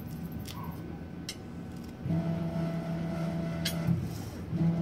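Hyrel Hydra 3D printer's motors running with a steady, even-pitched hum as the syringe dispensing head moves. The hum starts about two seconds in, stops briefly and picks up again near the end, after a few light clicks.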